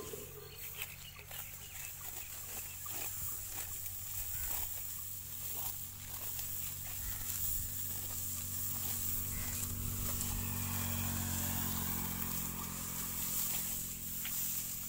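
Hand sickle cutting through standing dry wheat stalks: repeated short cutting sounds and rustling of the straw, with a steady low hum underneath.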